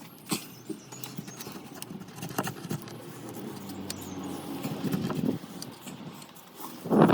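Oil filter housing cap on a BMW E90 engine being unscrewed by hand: scattered light clicks and knocks. A low hum builds in the background, and there is a louder rush of noise near the end.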